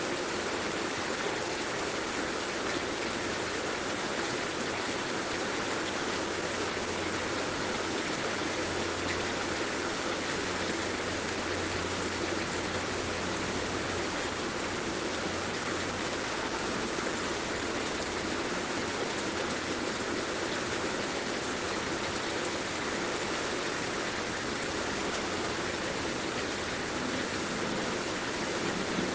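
Heavy rain falling steadily, an even hiss of water with no breaks.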